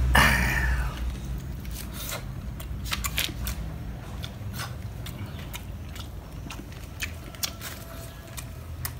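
A person biting and chewing grilled catfish, with scattered crisp clicks and crunches.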